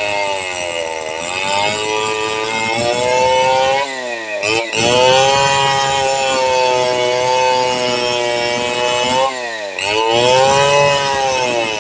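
Stihl two-stroke chainsaw running under load as it cuts through a thick log. The engine's pitch drops sharply and climbs back twice, about four seconds in and again near the end.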